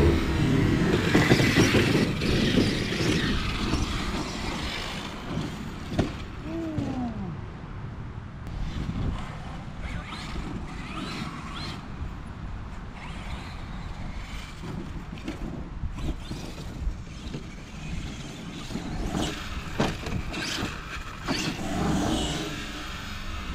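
Arrma Kraton 8S RC monster truck with a Castle brushless power system driving on dirt: motor whine and tyre noise, loudest in the first few seconds. About six seconds in there is a short whine falling in pitch, and several sharp thumps follow later.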